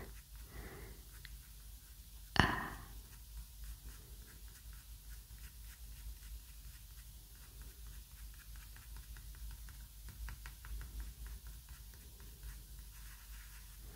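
Faint, repeated scratchy rubbing strokes of a fingertip working soft pastel dust into paper, with one brief louder noise about two and a half seconds in.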